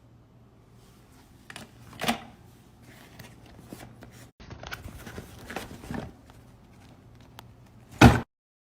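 Rustling and clicking handling noises over a faint steady low hum, with a sharp knock about two seconds in and a loud knock near the end before the sound cuts off suddenly.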